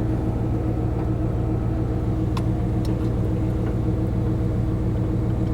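Jeep Cherokee engine idling steadily, a low even hum with a few faint ticks.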